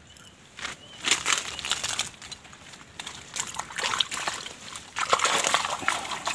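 Water sloshing and splashing in irregular bursts, starting about a second in and loudest near the end.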